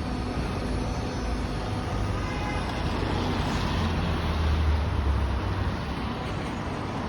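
Go-Ahead London bus EE38 running, heard from inside: a steady rumble with a low droning hum that swells about four seconds in and eases off again. This is the odd noise the rider is asking about.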